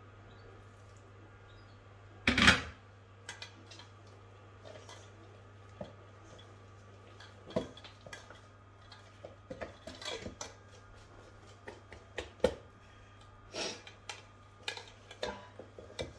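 Hands mixing and kneading bread dough in a stainless steel bowl: irregular knocks and scrapes against the metal, with one louder clatter a little over two seconds in.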